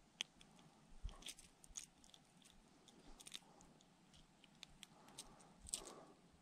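Faint scattered clicks and small rustles of a fishing lure's treble hooks and a small bass being handled as the lure is worked free of the fish's mouth, with a louder rustle near the end as the fish is lifted.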